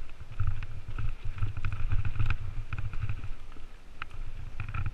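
Mountain bike descending a dirt forest trail at speed: a steady low rumble of the tyres and wind on the helmet-mounted camera, with frequent sharp rattling clicks from the chain and frame over the bumps.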